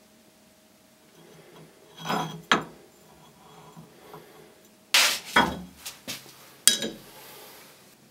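Scattered metallic clinks and knocks from a steel cleaver blank being handled at a bench vise, in small clusters about two seconds in and again from about five seconds in.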